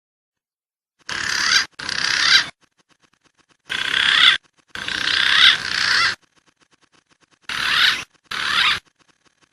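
Recorded wild pigeon calls used as a bird-trapping lure: three pairs of short, harsh calls, each pair lasting about a second and a half, with pauses between them.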